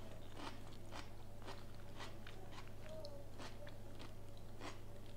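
Chewing a mouthful of soft layered herring, beetroot, potato and egg salad close to a clip-on microphone: faint, moist mouth clicks about twice a second, over a steady low electrical hum.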